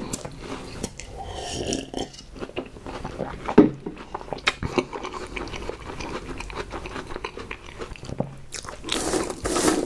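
Close-miked eating sounds: biting, chewing and crunching of snack food, with many short sharp clicks and one louder crunch about three and a half seconds in.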